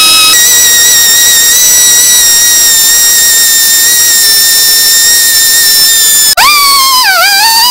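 Pneumatic straight die grinder with a small wire wheel, whining loudly at a steady high pitch as it brushes rust off a rusted pistol part. About six seconds in the whine cuts out for an instant, then dips lower in pitch twice and recovers.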